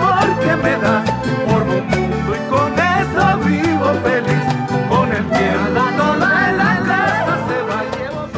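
Salvadoran chanchona-style folk music in an instrumental passage: a violin melody over guitar and bass with a steady beat.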